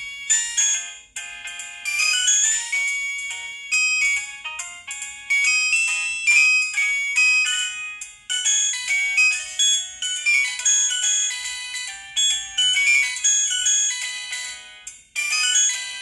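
Polyphonic ringtone from a Samsung SGH-T629 phone: a quick synthesised tune of short, bright notes with no bass, dropping away briefly a few times between phrases.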